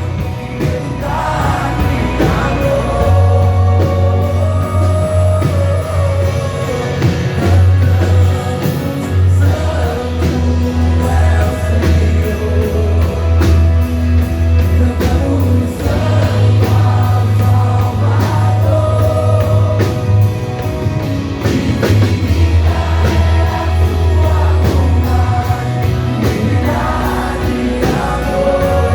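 Christian worship band music: voices singing a melody over a steady bass line and drums.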